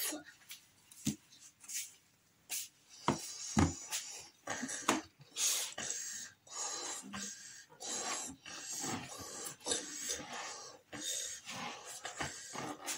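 Two children inflating rubber balloons by mouth: repeated breathy puffs into the balloons and quick breaths in between, with a few sharp handling clicks in the first seconds.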